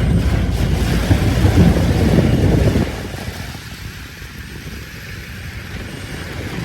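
Vehicle noise on a rain-flooded street, with wind rumbling on the microphone; the rumble drops off suddenly about three seconds in, leaving a quieter steady noise.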